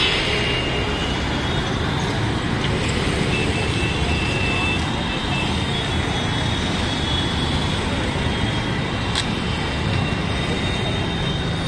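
Steady road traffic noise with a low rumble, and a single sharp click about nine seconds in.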